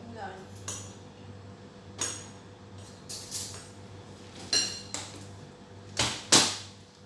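Spoon and fork clinking and scraping against ceramic plates and bowls while eating, a handful of separate sharp clinks, the loudest two close together near the end. A steady low hum runs underneath.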